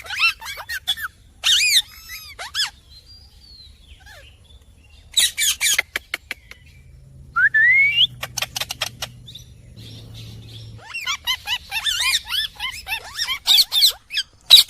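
Indian ringneck parrot chirping and squawking in short bursts with pauses between them, with a single rising whistle about halfway through and a long run of rapid chirps near the end.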